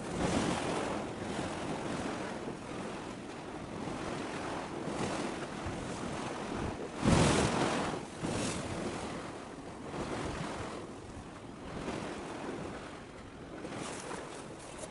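Wind buffeting the microphone over choppy harbour water, swelling and easing, with a sharp strong gust about seven seconds in.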